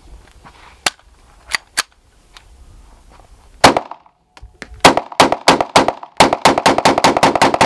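Pistol firing live rounds: two fainter shots in the first two seconds and a single loud shot about three and a half seconds in. Then, about a second later, a rapid string of shots starts, roughly five a second.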